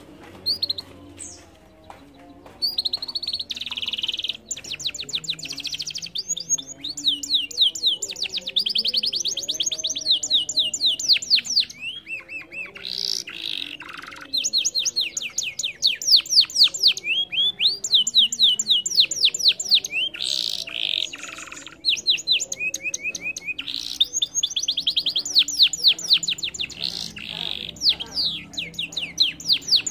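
Domestic canary singing a long, high-pitched song of fast trilled runs and rolls, with a few short breaks between phrases.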